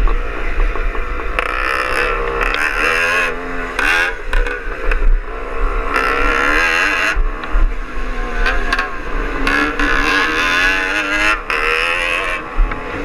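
Greeves Hawkstone two-stroke single-cylinder scrambler engine running hard under load, its pitch rising and falling with the throttle. Heavy wind buffeting on the bike-mounted microphone, with a second motorcycle's engine running just ahead.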